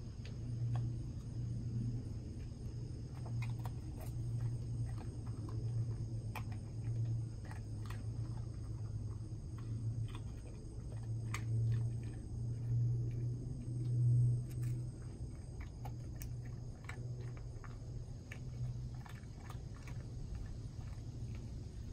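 Golden retriever crunching Wheat Thins crackers off the ground, with scattered sharp crunches over a steady low hum.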